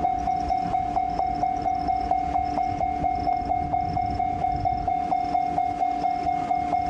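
Japanese level-crossing alarm bell ringing in an even, rapid "kan-kan" rhythm of about four strikes a second, over a low rumble.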